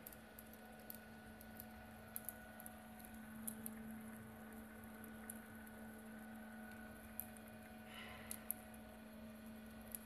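Lab two-roll mill running: a faint, steady hum from its drive, with a scattering of light ticks and clicks as the rollers turn over the polypropylene pellets.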